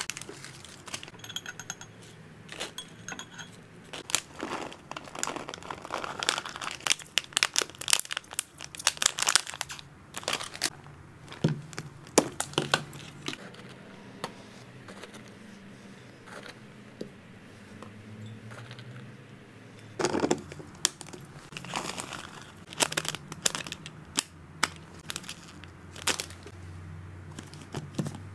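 A clear plastic bag crinkling and rustling as it is handled, then a spoon scooping dry hamster snack pellets in a clear plastic storage box, the pellets clicking and rattling against the plastic.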